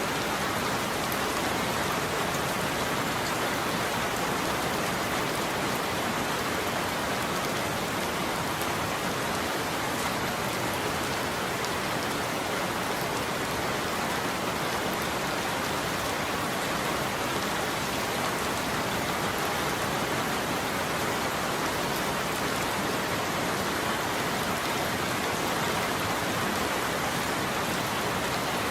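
Steady rain falling on a roof, an even unbroken hiss of drops.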